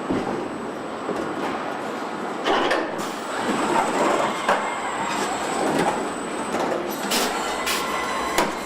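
Car assembly line machinery running: a steady mechanical din with several sharp metallic clanks, and a high steady whine that comes in about three seconds in.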